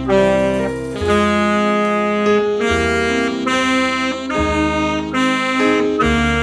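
Yamaha YAS280 alto saxophone playing a melody of held and shorter notes over a recorded accompaniment with a low bass line.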